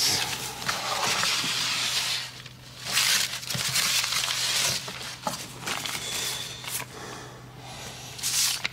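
Paper and cardboard rustling and crinkling as hands rummage through a cardboard box and lift out a torn paper envelope, coming in a few bursts with pauses between.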